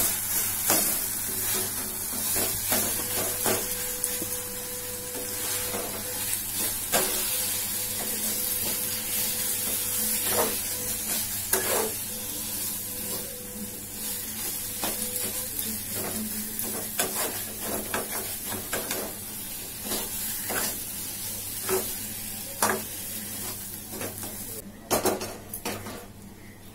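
A wooden spatula stirs and scrapes a sizzling chicken and mashed-potato filling in a frying pan, with frequent light knocks against the pan. Near the end come a few louder clanks of steel pots.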